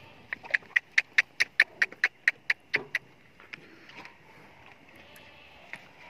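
An animal calling in a rapid series: about a dozen short, sharp, high notes, roughly four or five a second, lasting nearly three seconds and then stopping.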